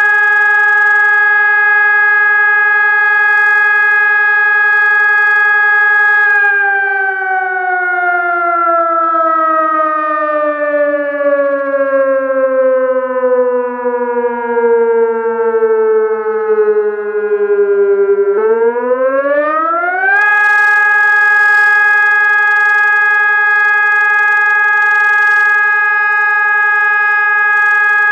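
Sonnenburg 600-watt electronic civil-defence siren sounding a loud, steady tone with many overtones. About six seconds in, its pitch slides slowly down for some twelve seconds, then sweeps quickly back up to the steady tone and holds it.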